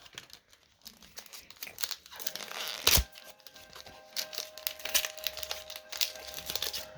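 A foil Pokémon card booster pack being torn open and crinkled, with one sharp rip about three seconds in. Soft background music with held notes comes in after about two seconds.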